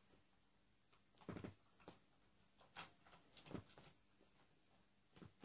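Faint, scattered clicks and soft knocks from hands handling a G&G M1 Garand airsoft rifle.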